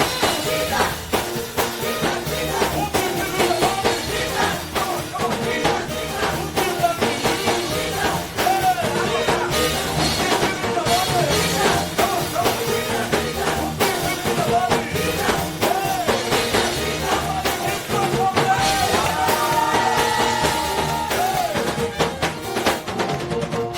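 Live gospel praise music: a band with drum kit playing a steady beat while a singing voice bends through runs above it.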